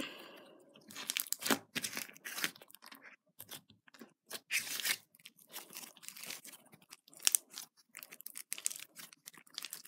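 Butter slime with beads in it being squished, folded and pulled apart by hand, making irregular crunchy crackles.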